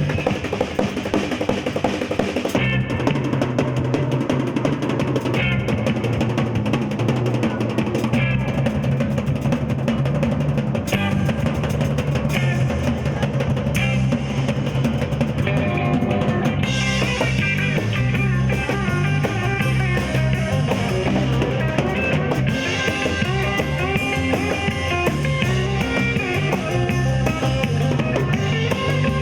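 Live rock band playing an instrumental passage: a drum kit is most prominent, with guitar and bass.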